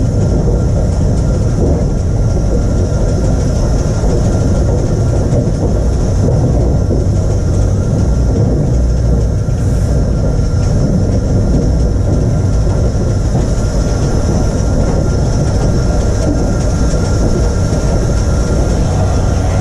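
Taff Vale Railway No.85, a 0-6-2 steam tank locomotive, on the move, heard from on top of its boiler: a steady heavy rumble with a constant high hiss over it.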